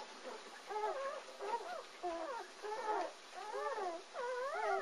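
Newborn German Shepherd puppies, two days old, whining and squealing in a string of short rising-and-falling cries, about two a second, with several cries overlapping near the end.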